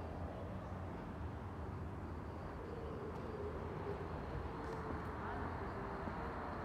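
Steady street noise with a low rumble of road traffic.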